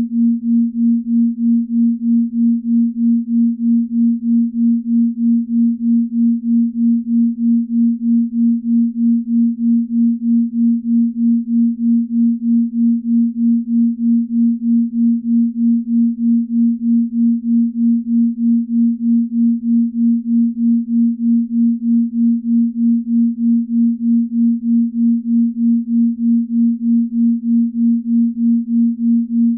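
Binaural beat: a single low pure tone held steadily, its loudness pulsing evenly about two to three times a second as the two slightly detuned tones beat against each other.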